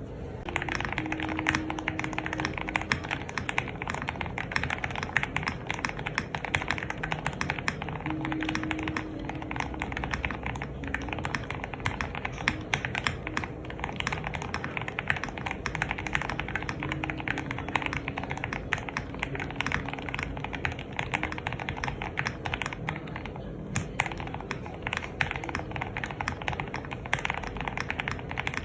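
Continuous fast typing on a Spark 67 R2 mechanical keyboard with lubed Cherry retooled Red linear switches and white-on-black keycaps: a dense, even patter of key strokes that starts about a second in.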